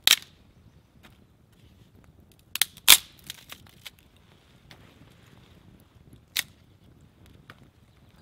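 Dry deadwood sticks snapped by hand for a campfire: a sharp snap at the start, a close pair of louder cracks about three seconds in, another past six seconds, and a few fainter cracks between.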